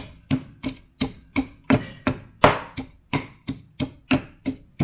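Stone pestle pounding garlic and chili in a granite mortar: steady sharp knocks, about three a second.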